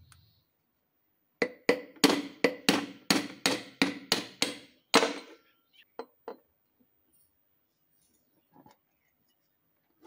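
A hammer striking a tubular drift held against a ceiling fan motor's ball bearing. About fourteen sharp metal blows, roughly four a second, each ringing briefly, knock the bearing out of its seat in the cover plate. A couple of light metal clicks follow as the tool is set down.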